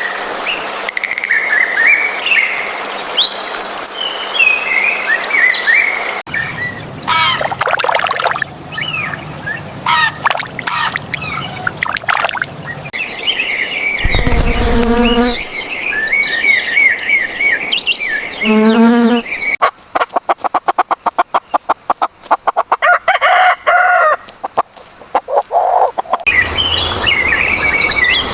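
A succession of bird sounds from different birds. It opens with chirping and twittering, then two short, lower calls with a clear pitch, then a fast run of clicks for several seconds, and ends with chirping again.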